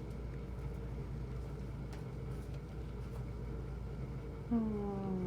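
Steady low hum with a hiss, like a running fan or motor, throughout. About four and a half seconds in, a drawn-out voice-like sound starts, falling slowly in pitch.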